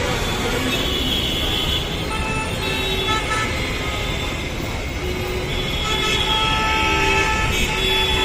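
Road traffic in a jam: a steady rumble of engines and tyres with vehicle horns honking again and again, several horns at different pitches overlapping.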